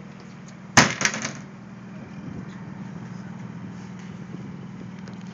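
Tour boat's engine running steadily with a low hum, with a sharp clatter of a few quick knocks about a second in.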